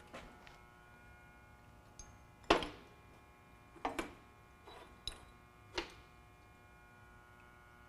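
Metal knocks and clinks as a hand rummages through the chips and offcuts in a horizontal band saw's tray, about six separate sharp knocks, the loudest about two and a half seconds in. A faint steady electrical hum runs underneath.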